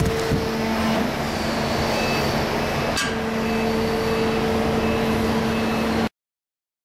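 Manta 54 non-ferrous metal baler running, a steady mechanical hum over heavy machinery noise with a sharp click about three seconds in. The sound cuts off suddenly about six seconds in.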